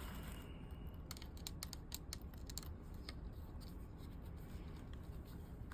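Faint quick clicks and scratching of small hand work, a screwdriver taking small screws out of a device, thickest in the first three seconds and then sparse.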